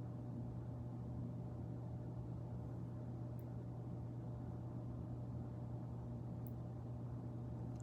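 Steady low hum over faint room noise, with two tiny faint ticks about three and six and a half seconds in.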